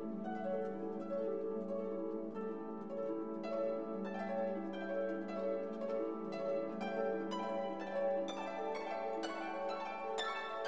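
Background instrumental music: held tones under a stream of plucked string notes that grows busier about a third of the way in.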